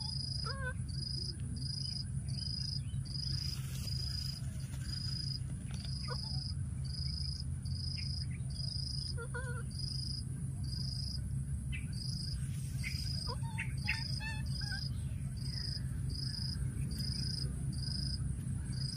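Insects chirping in a steady high pulse, about one and a half chirps a second, over a continuous high insect whine and a low background rumble. A few short, faint pitched calls come through about half a second in, near the middle, and about three-quarters of the way in.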